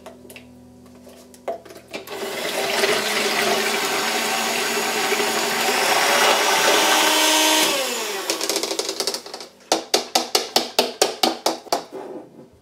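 Electric hand mixer whipping cream in a plastic bowl. The motor runs steadily for about six seconds, then its pitch falls as it winds down. Near the end comes a quick run of sharp taps, about five a second.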